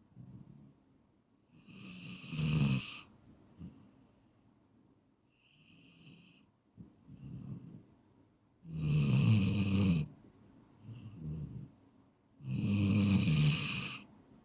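A sleeping person snoring: three loud, buzzing snores come about two seconds in, around nine seconds in and near the end, with softer breaths between them.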